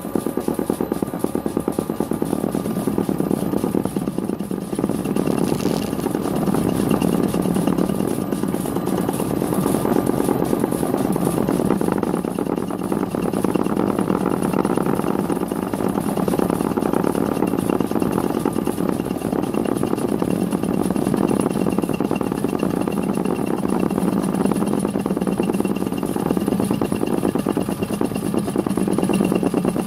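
Mini lathe running at slow speed, its milling attachment taking a full-depth cut in a single pass. It makes a steady, dense mechanical drone with a faint steady whine above it.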